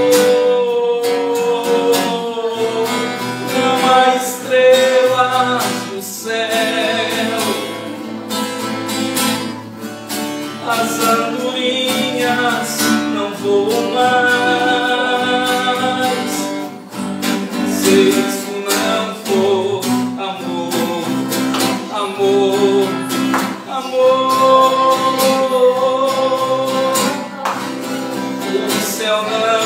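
Acoustic guitar strummed while a man sings a worship song over it.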